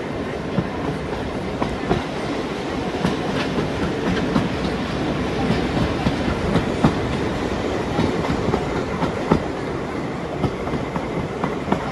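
Heritage railway passenger carriage rolling along the line, heard from on board: a steady rumble from the wheels on the track, with irregular clicks and knocks as they pass over the rail joints.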